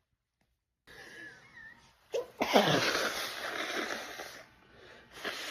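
A woman sneezing during an allergy sneezing fit, put down to allergic rhinitis. Faint squeaky breathing leads to a sharp catch a little over two seconds in, then a loud sneeze lasting nearly two seconds. A smaller breathy burst follows near the end.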